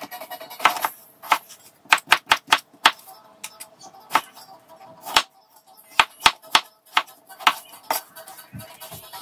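A kitchen knife chopping peeled potatoes into cubes on a cutting board: sharp, irregular knocks of the blade hitting the board, some in quick runs of three or four, with short pauses between.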